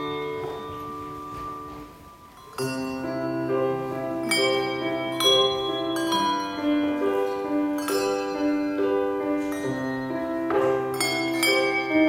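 Handbell ensemble playing a melody, the bells struck in chords and ringing on. The ringing dies away to quiet about two seconds in, then the ensemble comes back in with a full chord and plays on.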